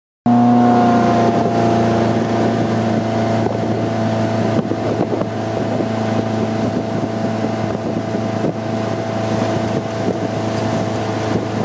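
Stingray 185LS motorboat's engine running steadily at towing speed, with wind on the microphone.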